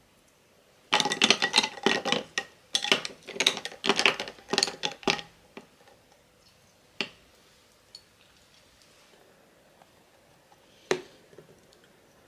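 A drink being stirred in a stemmed glass, the stirrer clicking rapidly against the glass for about four seconds, followed by a few single clicks.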